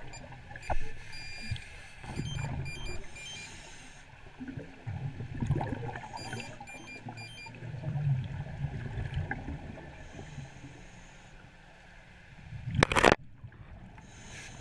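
Muffled underwater water movement: irregular low sloshing and gurgling swells. A single sharp knock near the end is the loudest sound.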